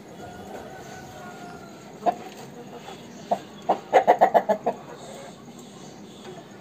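Aseel rooster clucking: one sharp cluck about two seconds in, then a couple more and a quick run of about seven short clucks around the four-second mark, the loudest part.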